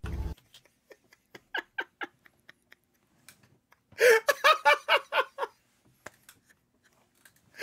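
A man laughing hard: quiet, breathy laughs at first, then about four seconds in a loud run of quick 'ha-ha' bursts lasting about a second and a half.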